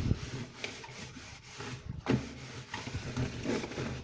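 Cloth rubbing and wiping the inner walls of a fridge, an irregular scrubbing sound, with a knock at the start and another about two seconds in.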